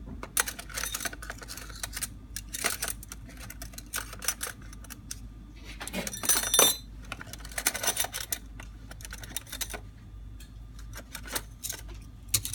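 Small metal carburetor parts clicking and clinking as they are handled and moved about on a work surface, irregularly, with a denser clatter and a brief metallic ring about six seconds in.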